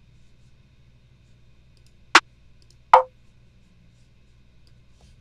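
Two drum samples played back in a DAW drum rack, about a second apart: first a short sharp crack, then a hit with a brief ringing tone. These are snare samples being auditioned.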